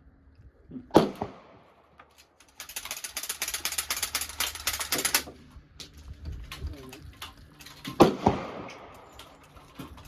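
Two gunshots about seven seconds apart, each a sharp crack with a short echo. Between them, a rapid rattling run of clicks lasts about two and a half seconds.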